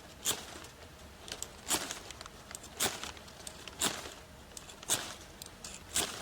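Wood campfire crackling: sharp pops about once a second with smaller snaps between, over a soft steady hiss.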